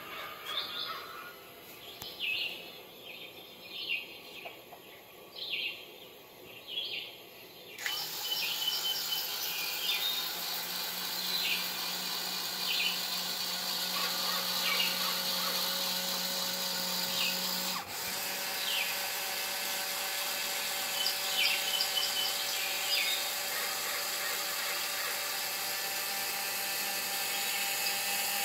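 A small electric motor whirring steadily, starting about a quarter of the way in. Short high chirps repeat about once a second throughout.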